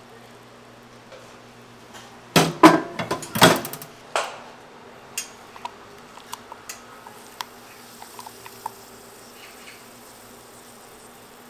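Kitchen utensils and cookware clattering: a quick run of loud knocks and rattles about two and a half seconds in, one more knock a moment later, then scattered light clicks and taps. A faint steady low hum runs underneath.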